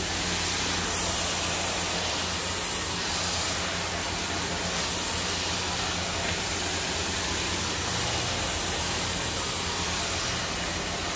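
Handheld salon hair dryer running steadily: an even rush of blown air with a low motor hum underneath.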